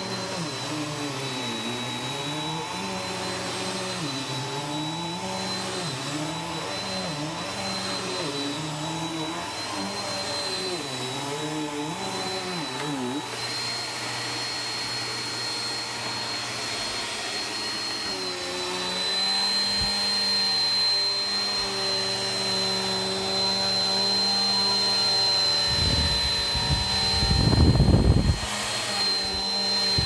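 Upright bagless vacuum cleaner running over a rug, with a steady high motor whine above a lower hum that wavers up and down in pitch as it is pushed back and forth. It gets louder and steadier a little past halfway, and a loud low rumble comes near the end.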